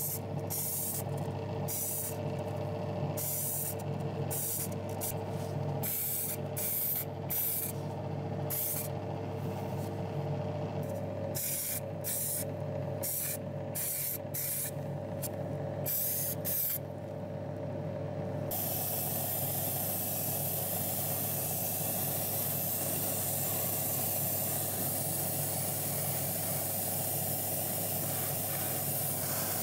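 Airbrush spraying paint onto a small die-cast metal model part: a run of short hissing bursts, then from a little past halfway an unbroken hiss. A steady motor hum runs underneath.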